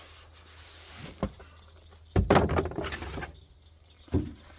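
A tarp and its packaging being handled and pulled about while unpacked: a sharp click about a second in, a loud scraping rustle lasting about a second from about two seconds in, and a thump near the end.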